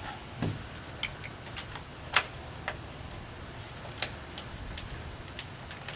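Scattered light clicks and taps, irregularly spaced, from knobs being fitted and turned onto threaded stud bolts that hold a plywood window shutter; the sharpest clicks come about two seconds and four seconds in.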